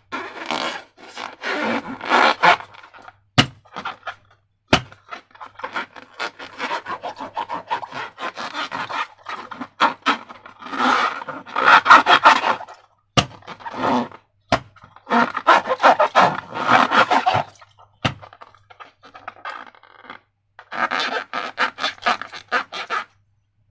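Slime being worked by hand: bursts of sticky, crackly squishing with short pauses between, and a few sharp snaps along the way.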